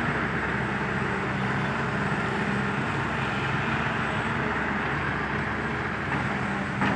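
Heavy-equipment diesel engine running steadily at an even speed, with a low hum and a broad rushing noise above it.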